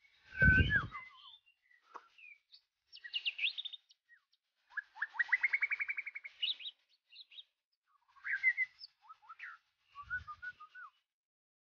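White-rumped shama singing several varied phrases of clear whistles and quick trills, broken by short pauses, including a fast run of repeated notes climbing in pitch. A low thud comes near the start, and a softer one near the end.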